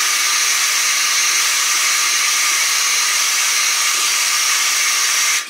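Hair dryer blowing hot air onto the opened iPhone 5S to soften the adhesive that holds the battery in. A steady hiss that is switched off near the end.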